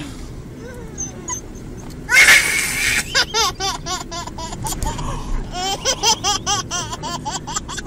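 Toddler laughing: a loud breathy outburst about two seconds in, then two runs of quick, high-pitched giggles.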